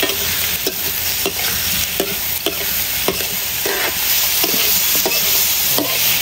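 Eel pieces sizzling in a hot pan while a utensil stirs them, knocking and scraping against the pan about every half second to a second.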